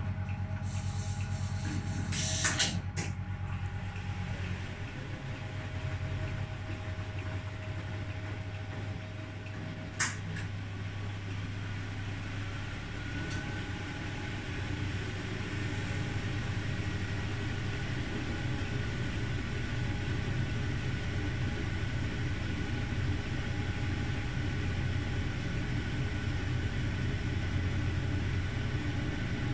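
1968 Scharpf Elektronica 2920 washing machine running through its boil-wash programme, its motor giving a steady low hum. Two sharp clicks come about two and a half and ten seconds in.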